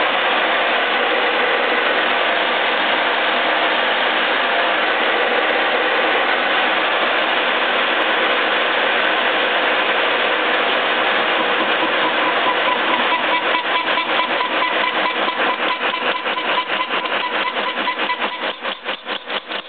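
Horizontal boring mill running with its boring bar and single-point cutter turning in a steel bore: a steady machine noise with a gear whine. About two-thirds of the way through, a regular pulsing of a few beats a second sets in and grows deeper toward the end.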